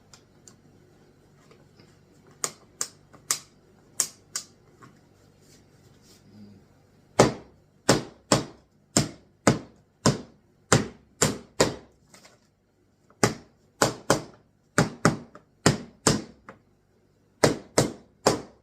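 A series of sharp taps on wood: a few scattered taps, then from about seven seconds in steady runs of about two taps a second, broken by short pauses.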